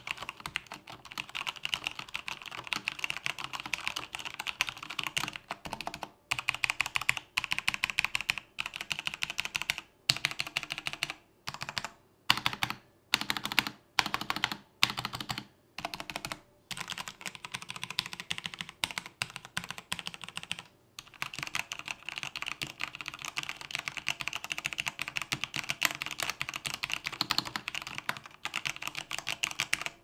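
Mountain Everest Max mechanical keyboard with Cherry MX Red linear switches being typed on in fast runs, with single keys pressed one at a time in the middle stretch, each a separate keystroke. The sound is a clean one, without stabilizer rattle or ping.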